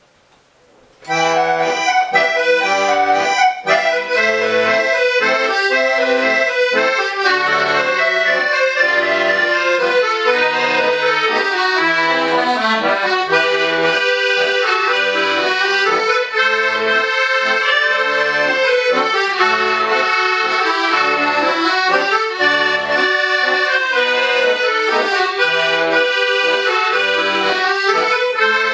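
An ensemble of accordions playing together: a chordal melody over regularly repeated bass notes. The music starts about a second in.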